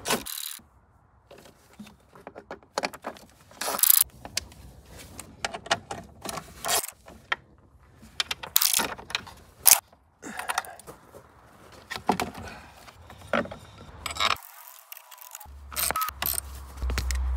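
Irregular clicks, knocks and metallic rattling of hand tools and plastic fittings as a car's battery tray and battery are refitted in the engine bay.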